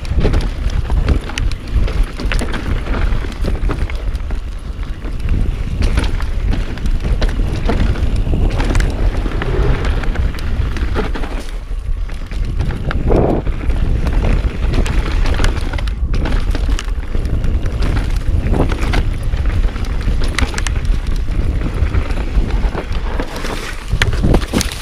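Mountain bike descending a dirt singletrack at speed, recorded from a chest-mounted camera: wind rushing over the microphone, tyres on dirt, and the bike rattling and knocking over roots and bumps. Near the end, a clatter as the rider slips off the trail and comes to a stop.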